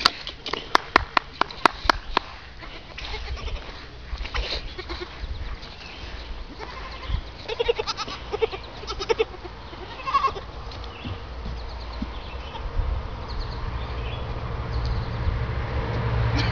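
Young goat kids bleating a few short times, mostly past the middle, with a quick run of sharp clicks near the start.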